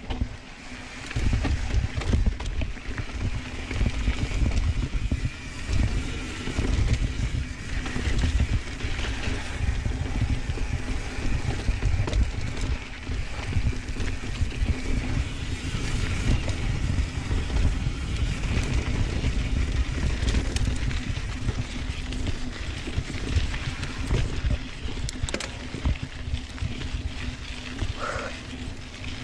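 Santa Cruz Tallboy mountain bike ridden fast down a dirt trail: a constant rumble of tyres and wind on the microphone, with rattles and knocks as it goes over bumps.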